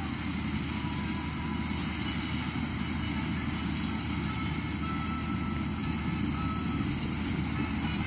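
Combine harvester running steadily as it cuts ripe paddy: a continuous low machine drone from its engine and threshing gear.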